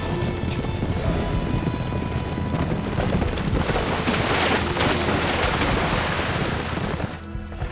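A troop of horses galloping, a dense rumble of many hoofbeats that swells to its loudest midway and drops away near the end, with background music underneath.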